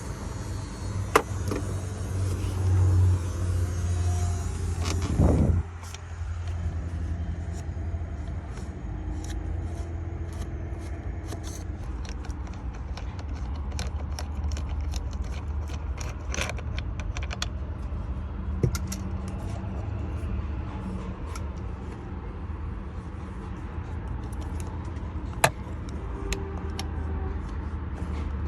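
Scattered sharp clicks and light metallic rattles from a tool and parts being handled at a car's steering wheel, over a steady low hum. A louder stretch of rattling comes a few seconds in.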